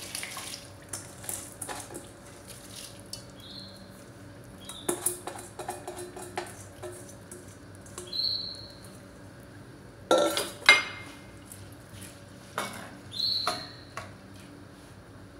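A metal bowl and a metal spoon clinking and scraping against a cooking pot as rice is tipped into broth and stirred. Scattered clinks and clatters, the loudest about ten seconds in, with a few short high squeaks.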